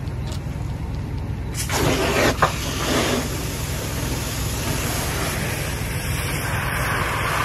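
Fire hose stream spraying water onto a burning car, with a sudden surge of hissing spray and steam about one and a half seconds in and more hissing later. A steady low engine rumble runs underneath.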